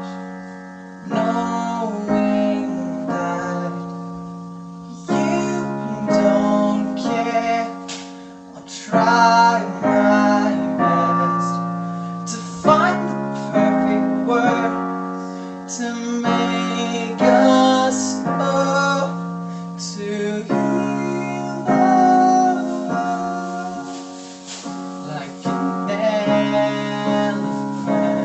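Piano played solo: chords struck about once a second, each left to ring and fade, as the instrumental part of a slow song.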